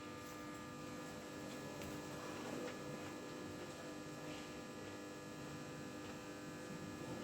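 Old desktop computer running with a steady electrical hum made of several fixed tones, from low to high, and a few faint ticks.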